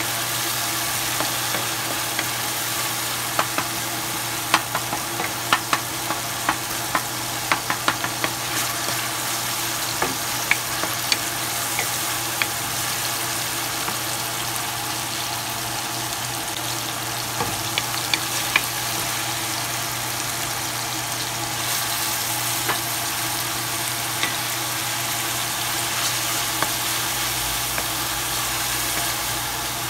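Chopped onions and tomatoes sizzling in hot oil in a frying pan, stirred with a wooden spoon that clicks and scrapes against the pan now and then. A steady low hum runs underneath.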